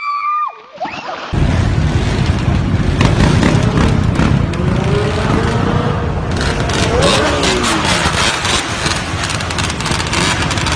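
Quad bike (ATV) engines running and revving over a loud rough noise, one engine's pitch rising and falling in the middle. A short high scream at the very start.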